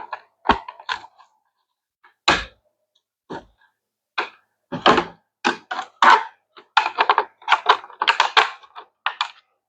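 Hard plastic parts of a hydroponic tower knocking and clattering as they are handled and fitted together: a few separate knocks, then a dense, irregular run of clatter from about four seconds in.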